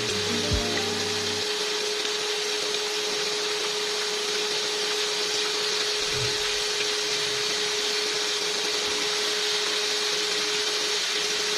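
Breaded chicken pieces frying in hot oil in a pan: a steady, dense sizzle. A faint steady hum runs under it.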